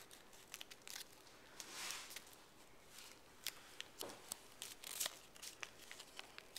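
Origami paper being folded and creased by hand: faint crinkling and rustling made of many small sharp clicks, with a couple of brief swishes as fingers slide along the paper.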